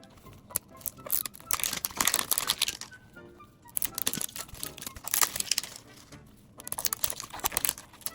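Plastic packaging crinkling and tearing as a blind-packaged mini plush toy is opened by hand, in three bursts of crackling with short pauses between. Quiet background music runs underneath.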